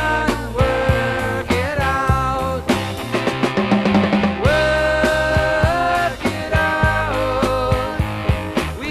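A 1973 rock record played from vinyl: a melody in long held notes over bass and a steady drum beat.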